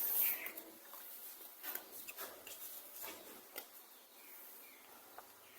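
Faint scratching and light clicks from handling the separated layers of a keypad mobile phone's display, with a brief louder scrape at the very start.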